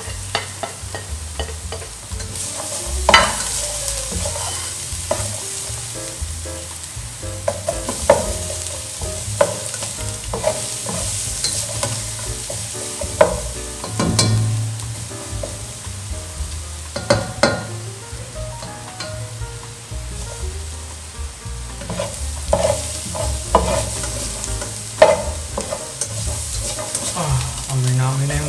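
Minced garlic sizzling in hot olive oil in a frying pan, with a steady hiss. A wooden spatula stirs it, scraping and knocking against the pan at irregular moments.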